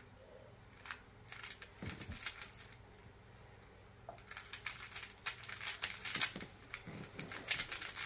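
Plastic Rubik's Cube turned fast by hand, its layers clicking and rattling in rapid bursts, with a pause of about a second and a half before the turning picks up again.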